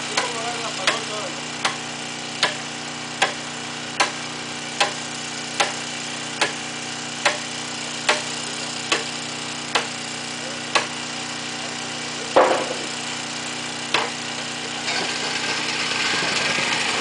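Hammer blows at a steady pace, about one every 0.8 seconds, over an idling engine's steady hum. The hammering stops about 11 seconds in, with a heavier thud shortly after and a hiss rising near the end.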